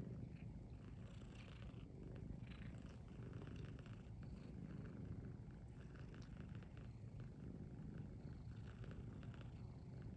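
Steady, close cat purring while a young tabby cat suckles at an adult cat. Faint quick wet clicks of suckling run through the purr.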